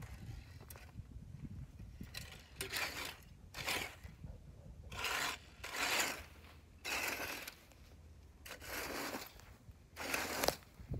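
Small leaf rake scraping through dry grass and straw in repeated pulls, about seven strokes starting about two seconds in.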